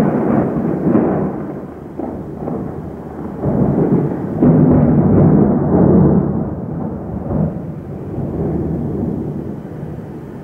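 Thunder: a loud crack that breaks in suddenly and rolls on in waves of rumbling, loudest about four to six seconds in, then slowly dying away.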